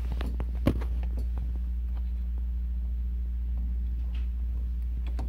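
A steady low hum, with scattered soft clicks and one sharp knock a little under a second in, as a cat in a clear plastic cone collar eats dry kibble from a small steel bowl, the cone edge knocking against the bowl.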